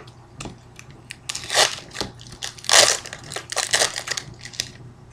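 Plastic trading-card pack wrapper crinkling in several short bursts as the pack is opened and the cards are slid out.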